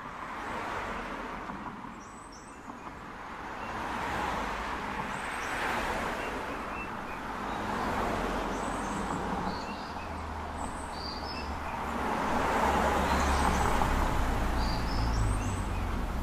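Street ambience: road traffic passing in slow swells, with a low rumble building near the end and small birds chirping now and then.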